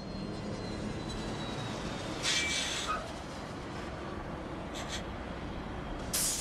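Transit bus engine rumbling steadily, with sharp hisses of compressed air from the bus about two seconds in, briefly again later, and loudest near the end. A faint falling whine is heard in the first couple of seconds.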